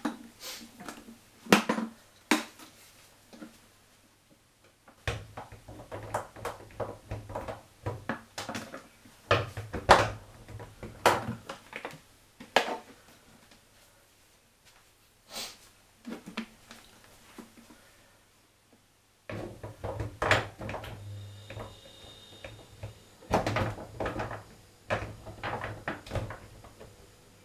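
Irregular clicks, taps and knocks of hand tools, screws and metal and plastic parts being handled while a washing machine door hinge and door catch are fitted, with short pauses between bursts.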